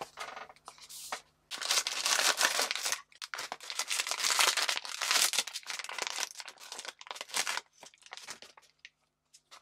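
A blind-box figure's foil wrapper crinkling and tearing as it is ripped open by hand. It starts with faint rustles, runs loud and crinkly from about a second and a half in, and dies down to lighter rustling near the end.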